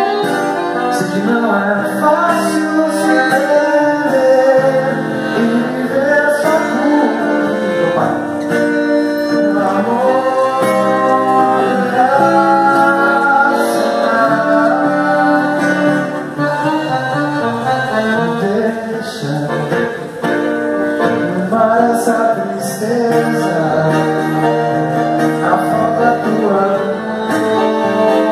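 Acoustic guitar and piano accordion playing a tune together, with the accordion holding sustained notes over the strummed and picked guitar.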